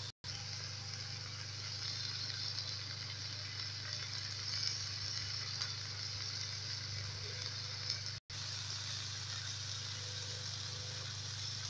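Onions and dried red chillies sizzling as they fry in melted fat in a pan, a steady hiss over a low hum. The sound breaks off for an instant twice, and after the second break, about eight seconds in, grated coconut is frying in the pan with them.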